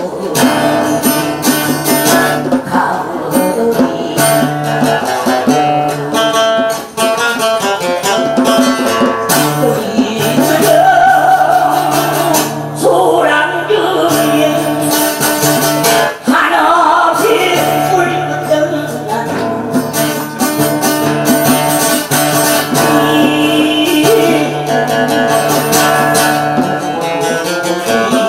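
Live music: acoustic guitar strumming with djembe hand drumming, and a voice singing at times.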